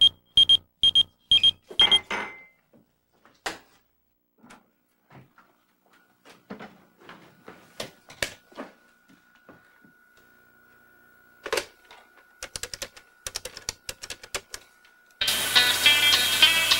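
Electronic beeper sounding in short high pips, about two a second, stopping about two seconds in. Then scattered clicks of typing on a computer keyboard, over a steady thin high tone from about six seconds in. Music comes in near the end.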